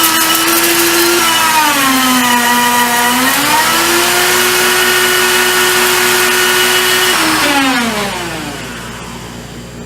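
Electric power-tool motor running steadily, dropping in pitch under load for about two seconds, then speeding back up. About seven and a half seconds in it is switched off and winds down to a stop.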